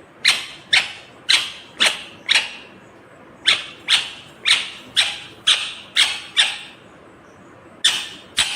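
Indian ringneck (rose-ringed) parakeet giving short, loud calls about two a second. It gives a run of five, pauses for about a second, then a run of seven, and starts another run near the end.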